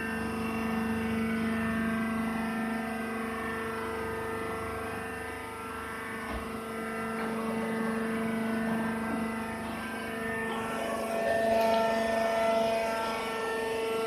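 Steady mechanical hum of a horizontal wheat husk baler running, with several held tones. About ten seconds in the tone shifts, a higher whine joins and it gets a little louder.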